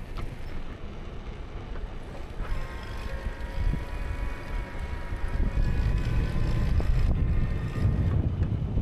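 Wind buffeting the microphone and road rumble from a tilting tadpole trike's tyres rolling on asphalt. A steady whine comes in about two and a half seconds in and fades out near the end.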